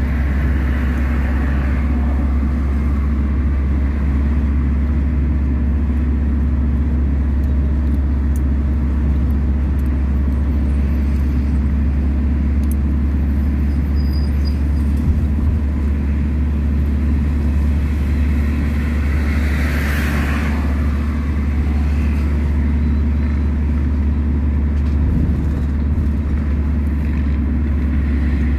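Steady low rumble of engine and road noise from a car driving along a city road, with a brief louder hiss about two-thirds of the way through.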